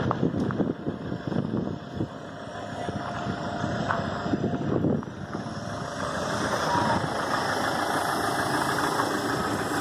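Chevrolet Optra Magnum's engine idling steadily during an HHO carbon-cleaning service, hooked up to the decarbonizing machine that feeds hydrogen-oxygen gas into its intake.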